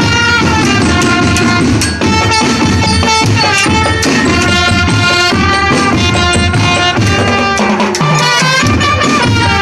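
Marching band music: a brass melody over bass drums and percussion.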